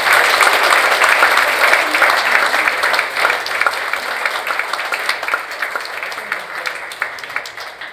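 Audience applauding, the clapping fading away gradually toward the end.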